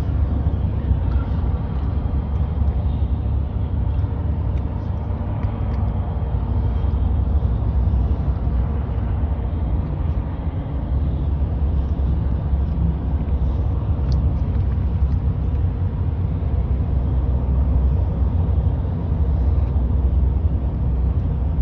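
Steady low rumble of tyre and engine noise heard from inside a moving vehicle's cabin as it drives along the road.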